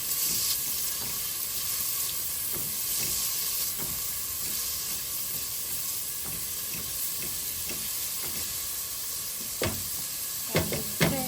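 Onions sautéing in oil in a pan, a steady sizzle with the scrape of stirring. A few sharp knocks come near the end.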